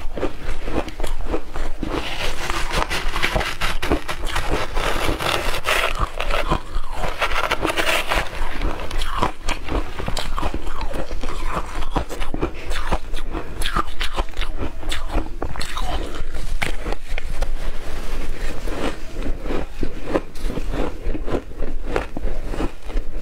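Shaved ice being bitten and chewed close to a clip-on microphone: a dense, continuous run of loud crunches. A metal spoon scrapes and scoops through the ice in a glass bowl.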